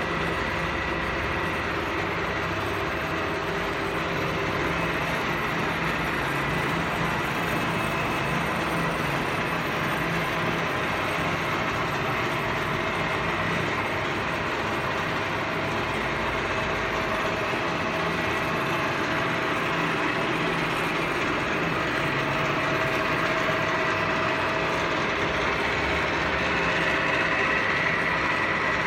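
Metal lathe running steadily while turning a shaft, a continuous machine hum with a thin high whine that grows a little louder near the end.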